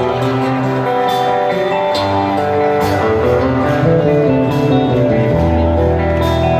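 Rock band playing a guitar-led instrumental passage with bass, before the vocals come in.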